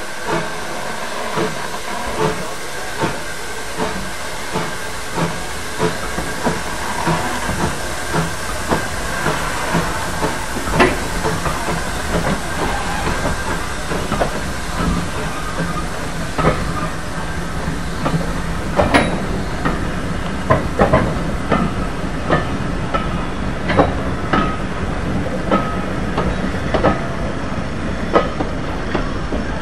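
Steam hissing from a 1938 Hudswell Clarke 0-6-0 saddle tank steam locomotive as it moves slowly with its coaches. There are regular clanks and knocks, about one every second and a half at first and coming closer together after about twenty seconds.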